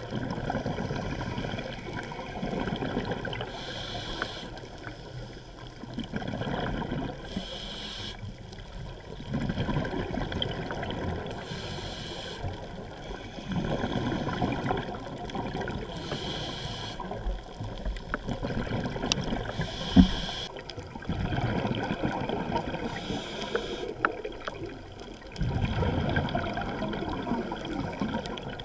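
Scuba diver breathing through a regulator, heard underwater: a short hiss on each inhale and a longer rush of bubbles on each exhale, about one breath every four seconds. A single sharp click about twenty seconds in.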